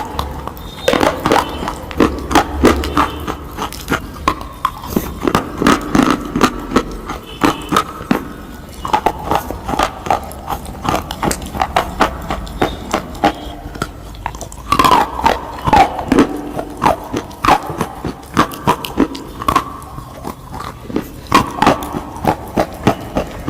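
Close-up eating crunch: rapid, irregular crisp crunches of biting and chewing crunchy food, several a second, with brief wet mouth sounds among them.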